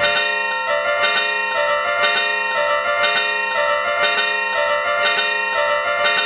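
Several Japanese level-crossing alarms ringing together, their clanging "kan-kan" bells overlapping at different pitches in a steady rhythm of about two strikes a second.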